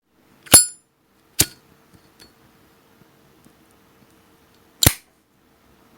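A 1950s Zippo lighter's hinged metal lid clicking: three sharp metallic clicks, about half a second in, near a second and a half, and near the end. The first is the loudest and rings briefly.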